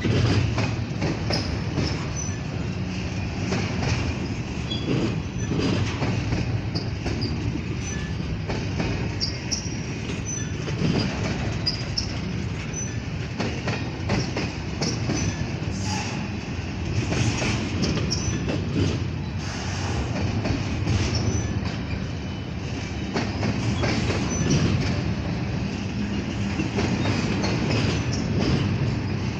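Double-stack intermodal well cars loaded with shipping containers rolling past: a steady rumble of steel wheels on rail, with clatter and brief high wheel squeals scattered throughout.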